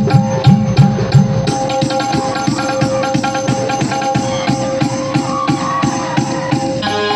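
A live village band playing: a steady drum rhythm under held melody notes. Heavy low drum beats at the start give way to lighter, quicker strokes, and a new melody comes in near the end.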